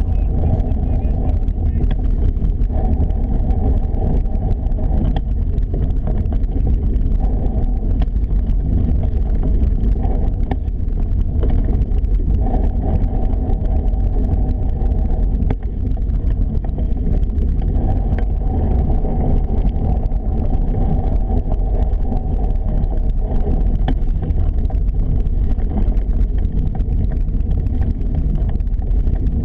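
Steady low rumble of wind buffeting a GoPro's microphone while it moves, loud and even throughout.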